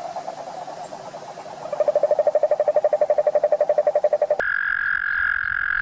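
Frogs calling: a pulsed trill of about a dozen pulses a second, louder from about two seconds in, then an abrupt cut just after four seconds to a different, higher-pitched steady trilling call.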